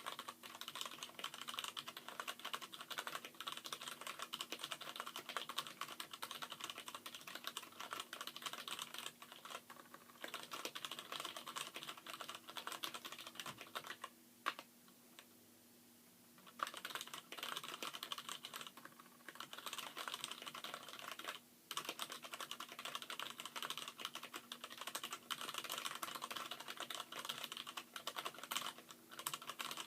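Fast typing on a mechanical keyboard: its alpha keys have Gateron Brown tactile springs and stems in Cherry MX Black housings, the rest are Cherry MX Black switches. The typing is a dense, continuous run of key clicks, with one pause of about two seconds near the middle.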